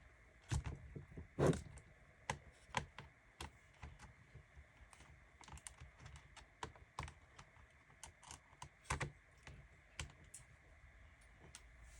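Small Phillips screwdriver working the screen-bezel screws out of a Lenovo X220 laptop: scattered light clicks and ticks of the driver tip and screws, irregular, with a few louder clicks.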